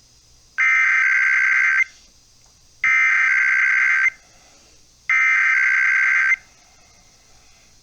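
Emergency Alert System SAME header: three identical bursts of warbling two-tone data, each about a second long with a second's pause between. They open a required weekly test, which is read out right after.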